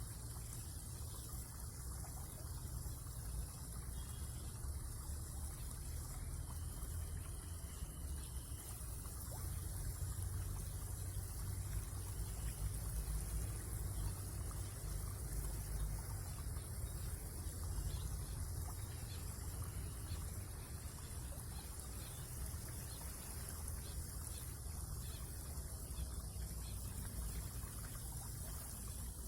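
Water trickling and lapping at the water's edge over a steady low rumble, with no distinct events.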